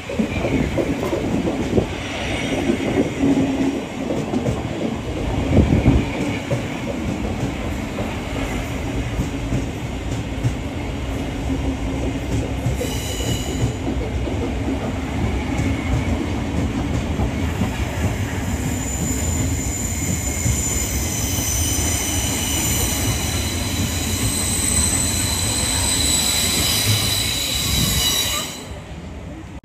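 Passenger train moving along the platform with a steady rumble. A high wheel squeal comes in about two-thirds of the way through and grows louder, then the sound cuts off suddenly near the end.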